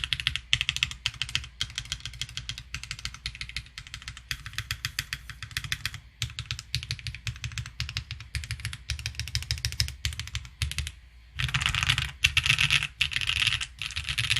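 Typing on a Sinanju mechanical keyboard with stock Leobog Kayking switches, an FR4-aluminium hybrid plate and Ranked keycaps: a steady run of keystrokes. It pauses about eleven seconds in, then comes back as a faster, denser flurry that stops suddenly.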